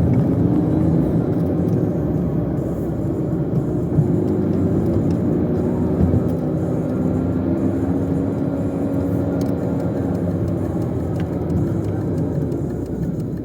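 Steady low rumble of a car being driven, heard from inside the cabin: engine and road noise, with the engine note rising and falling gently as the speed changes.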